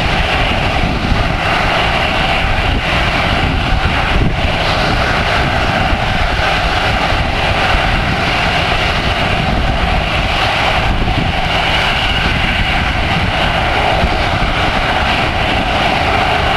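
Boeing 737-500's CFM56-3 turbofan engines running, a loud, steady jet noise over a low rumble.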